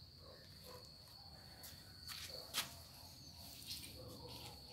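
Quiet background with a steady high-pitched whine and a few light clicks and taps; the sharpest click comes about two and a half seconds in.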